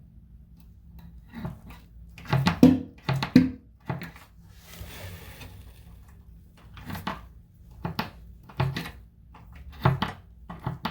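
Knocks and clatters of hard parts of a bathtub waste-and-overflow kit being handled and set down, with a brief rustle about halfway, over a steady low hum.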